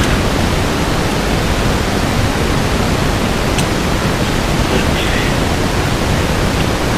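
Steady, loud hiss with a faint click about three and a half seconds in.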